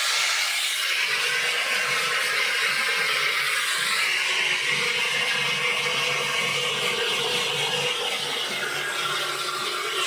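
Handheld hair dryer blowing steadily: a rush of air with a constant motor hum beneath it.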